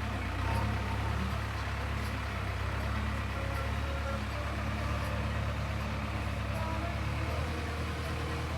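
Diesel engine of a JCB backhoe loader running steadily, a constant low rumble.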